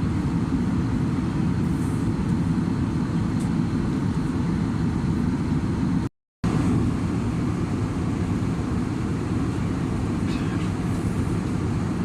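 Steady low rumble of engine and airflow noise in an Airbus A320's cabin in flight, cutting out for a moment about halfway through.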